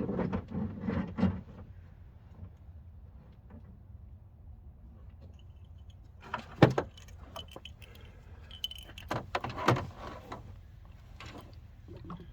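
Scattered metallic clinks and knocks of hand tools and metal parts being handled during engine-bay work. A cluster comes about six seconds in and more around nine to ten seconds, one with a brief ring.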